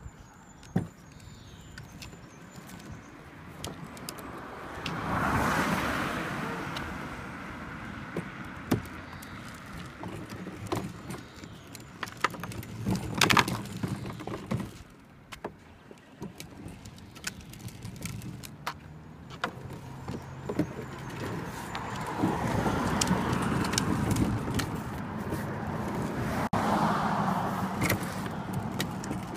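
Hard plastic wheels of a Little Tikes Cozy Coupe ride-on car rolling and rattling over a tarmac path, with many sharp clicks and knocks from the plastic body. The rolling gets louder in a few stretches as the car picks up speed.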